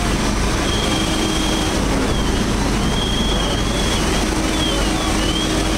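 A steady, loud engine drone, with a thin high whine that comes and goes and wavers slightly in pitch.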